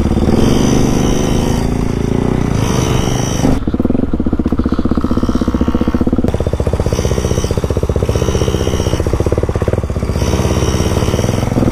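Small dirt bike engines running steadily at low trail speed, a rapid even firing beat. The sound changes character about three and a half seconds in and again around six seconds.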